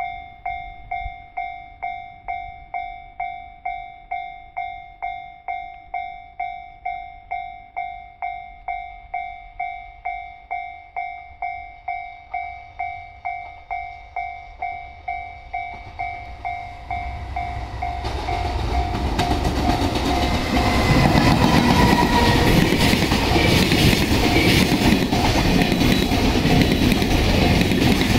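Japanese level-crossing warning bell ringing in even strokes, about two a second. From about sixteen seconds in, a train approaches and passes over the crossing, and the clatter of its wheels on the rails grows loud and drowns out the bell.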